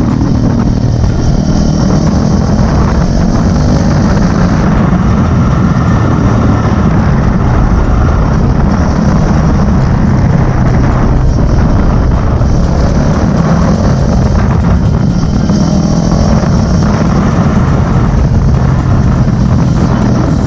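Yamaha Sniper 150's single-cylinder four-stroke engine running through a fitted Yamaha R3 exhaust canister: a loud, even exhaust note that holds nearly the same pitch throughout.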